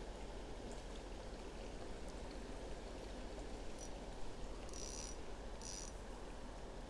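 Steady rush of flowing river water, with two brief high-pitched chirps about five and six seconds in.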